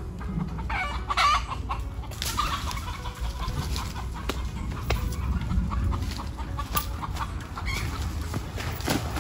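A chicken clucking and squawking in repeated short bursts while it is chased through the undergrowth, with the scattered snaps and rustles of someone running through dry leaves and brush.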